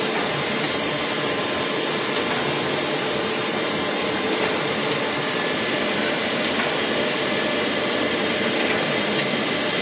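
DoAll G10 surface grinder running under power: a steady, even whirring hiss from its motors and hydraulics, with no change in pace.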